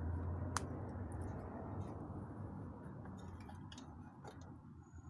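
Scattered light clicks of pliers and metal tools against a steel bench plate while a bullet mold is handled, a sharp one about half a second in and a few softer ones later. A low rumble underneath fades away.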